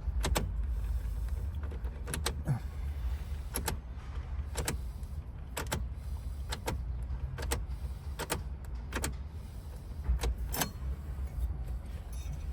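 About a dozen sharp clicks at irregular intervals, from a key and lock cylinder being worked, over a steady low rumble.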